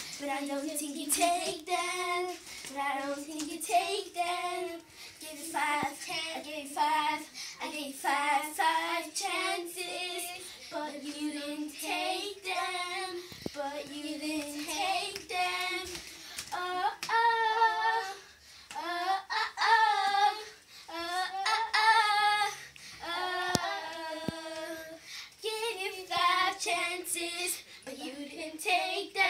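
A child singing without accompaniment, a girl's voice going phrase after phrase with held notes that waver in pitch.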